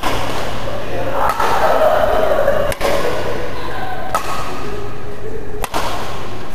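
Badminton rally: about five sharp racket-on-shuttlecock hits, one roughly every second and a half, over the steady noise and voices of a sports hall.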